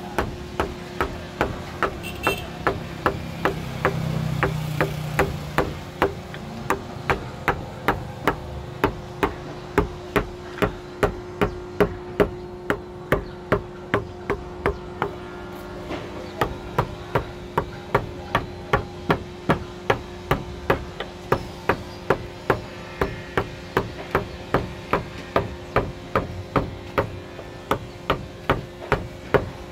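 Wood-carving chisel being struck repeatedly to cut a design into wood: a steady run of sharp knocks, about three a second, with a brief pause about halfway.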